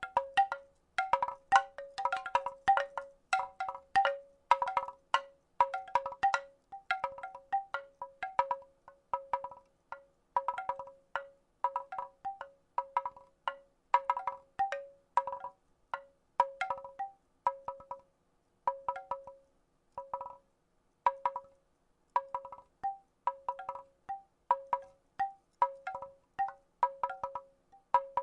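Wooden rattle shaken in repeated bursts about once a second, each burst a quick cluster of clacks with short ringing tones at a few fixed pitches.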